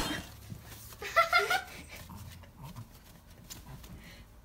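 A small dog whining, a few short high whines about a second in, followed by faint rustling and scuffling as the dogs settle into a fabric pet bed.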